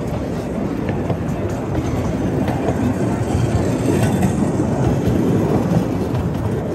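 Passenger carriages of a 10¼-inch-gauge miniature railway train rolling past close by: a steady rumble of wheels on rail, with scattered faint clicks.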